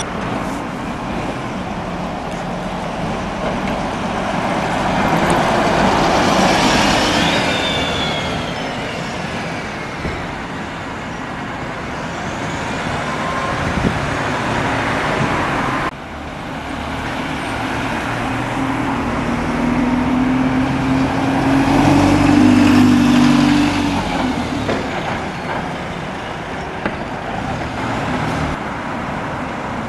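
Road traffic passing. Two vehicles go by, each swelling and fading, with a sudden break about halfway. In the second pass an engine's note rises as it pulls by.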